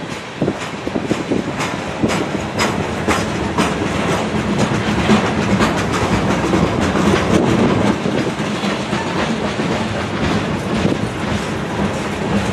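Freight cars of a passing CN freight train, centerbeam lumber flatcars and a covered hopper, rolling by close up: a steady rumble of steel wheels on rail with many sharp clacks from the wheels on the track.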